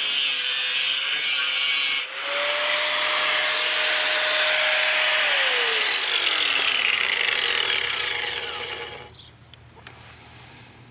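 Porter-Cable 6-amp angle grinder with a cutting wheel cutting through rusty steel angle iron: loud steady grinding with a whine, briefly dipping about two seconds in. About five seconds in the motor's whine starts to fall as the wheel spins down, and the sound dies away about nine seconds in.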